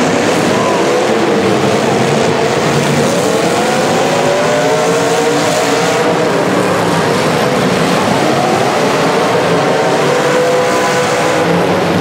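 Several demolition derby car engines revving hard at once, their pitches rising and falling as the cars push against each other with wheels spinning in the dirt.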